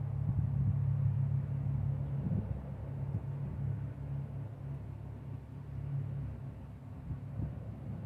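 Low, steady outdoor background rumble, loudest in the first couple of seconds and easing off after.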